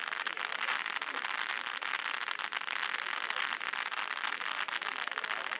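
Krakatau ground fountain firework spraying: a steady hiss shot through with dense crackling from its glitter stars.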